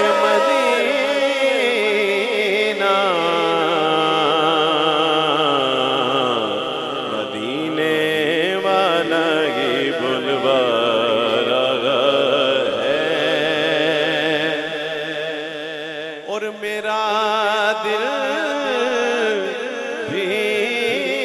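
A man singing a naat unaccompanied into a microphone over a PA system, drawing out long melismatic notes that waver up and down without clear words. Steady low notes are held beneath the voice through the middle of the passage.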